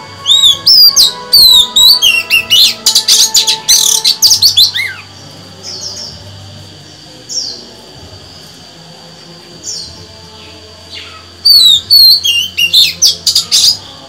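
Oriental magpie-robin singing: a burst of quick, sweeping high whistles and rapid trills lasting about five seconds, then a few single whistled notes, then a second burst near the end.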